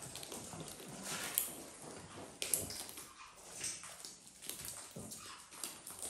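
A poodle and macaws moving about on a wooden floor around a metal seed tray: scattered sharp clicks and scuffles, with a few soft snuffling sounds from the dog.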